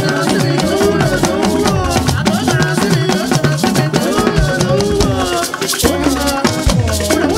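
Live praise-band music driven by hand percussion: talking drums, shakers and other drums playing a steady dance rhythm.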